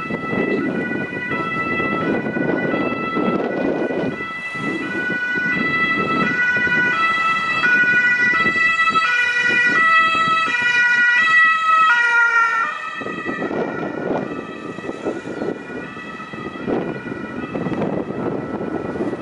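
Two-tone emergency vehicle siren sounding, stepping back and forth between two pitches over a steady high tone; it grows louder towards the middle and the stepping tones break off about 13 seconds in. Wind rumbles on the microphone.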